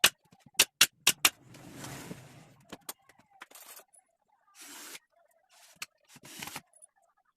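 Five sharp knocks in quick succession, then a rougher burst of scraping or rubbing noise and several shorter scraping sounds.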